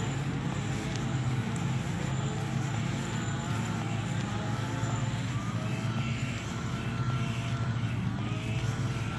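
A motor running steadily at moderate level, with a whine that glides up and down in pitch over a constant low hum.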